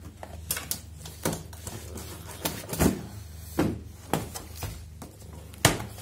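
A cardboard box being cut open with a knife and its flaps pried apart: irregular scrapes, cracks and knocks of cardboard, over a steady low hum.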